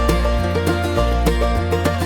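Background music: plucked-string instrumental with a steady beat and a strong bass line.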